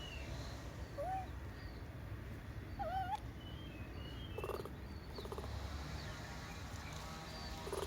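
Baby monkey squeaking: a short rising-and-falling squeak about a second in and a wavering one about three seconds in, then two short buzzy calls. Faint high bird chirps and a low steady rumble sit underneath.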